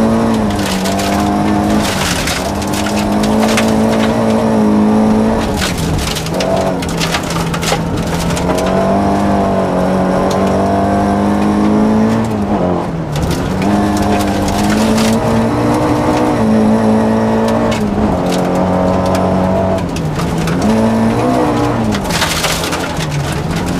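Rally car engine at high revs heard from inside the cabin, its pitch climbing and then dropping sharply several times as the driver changes gear and lifts for corners. Gravel clatters against the underbody throughout.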